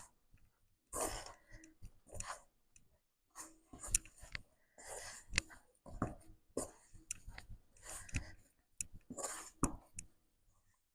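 Hand mixing whole wheat flour and hot water into a wet, sticky poori dough in a bowl. It makes irregular squelching and slapping noises with occasional sharp clicks.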